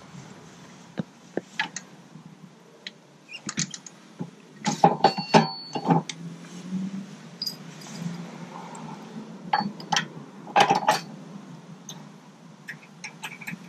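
Metal clicks and clanks of a Blue Ox tow bar arm being coupled to the car's base plate attachment and its locking pin pushed in and secured. They come in several bursts, loudest about five seconds in and again near eleven seconds.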